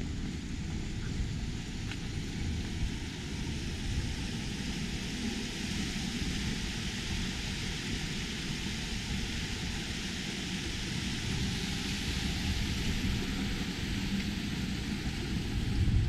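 Steady street noise of passing road traffic, an even rushing roar with a low rumble that swells slightly near the end.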